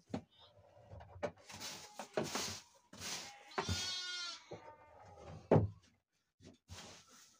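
A sheep bleats once, a wavering call about halfway through, among bursts of rustling straw bedding being gathered up. A sharp knock comes about a second and a half later.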